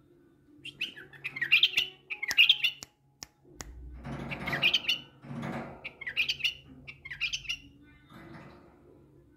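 Caged male white-eared bulbul singing short bursts of bright, chirpy phrases, several in a row, with a few sharp clicks and rustling noises between them.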